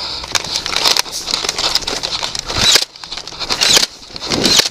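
Irregular scuffing, rustling and knocking as a person runs across dry grass with a body-worn camera and gear jostling.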